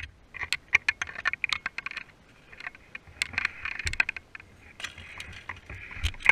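Handling noise from an action camera being picked up and moved: irregular sharp clicks and scraping rubs over a steady hiss, with a couple of heavier knocks near the end.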